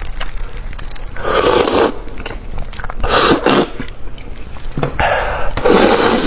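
Close-miked eating sounds of a person eating a large fish head: four bursts of mouth noise, chewing and sucking at the flesh, about a second or two apart.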